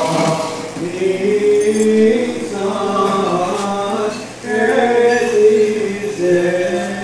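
Voices chanting an Orthodox Paschal hymn, with long held notes and a brief pause about four seconds in.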